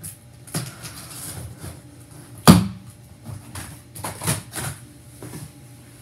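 Cardboard shipping box being opened by hand: scattered rustles and knocks of cardboard and packing tape, with one sharp knock about two and a half seconds in that is the loudest.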